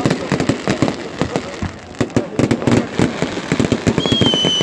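Fireworks display: a dense, rapid string of bangs and crackles from bursting aerial shells. About four seconds in a thin, high whistle joins, falling slightly in pitch.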